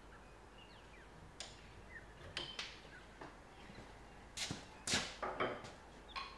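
Scattered light knocks, taps and scrapes of hand work on wood, sparse at first and louder and closer together from about four seconds in.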